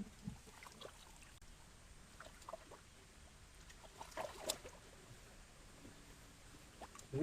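Faint splashing and sloshing of muddy pond water stirred by hands, with scattered small clicks and a short cluster of splashes about four seconds in.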